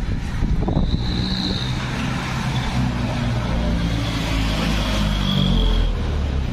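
A motor vehicle's engine running low and steady: it sets in about two seconds in, is loudest around five to six seconds, and drops away near the end.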